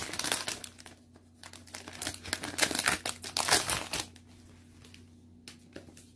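Clear plastic wrapping crinkling as it is peeled off and pulled away from a cardboard box, in quick crackles that die down after about four seconds.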